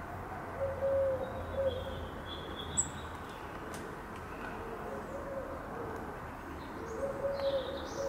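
A pigeon cooing in low, even phrases, about a second in and again near the end, with a few faint high chirps of small birds.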